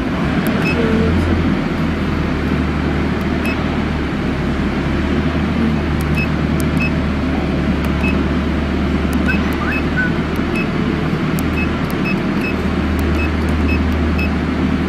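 Short high beeps, a dozen or so at irregular intervals, from keys being pressed on a Starfire CNC plasma controller's keypad, over a steady, loud machinery drone with a low hum.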